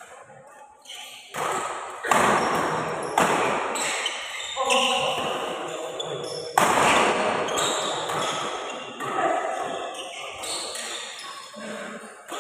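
Badminton rackets striking a shuttlecock in a fast doubles rally: a string of sharp, loud hits, roughly one every second or so, each echoing in the hall.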